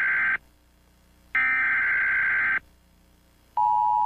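Emergency Alert System tones: two harsh, buzzing data bursts, each about a second long with a second of silence between them. About three and a half seconds in, the steady two-tone EAS attention signal begins.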